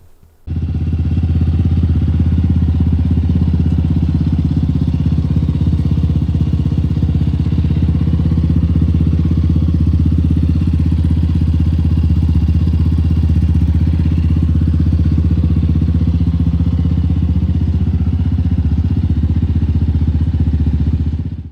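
Yamaha Raptor 700R's single-cylinder four-stroke engine running steadily at idle, cold after sitting unstarted for one or two weeks.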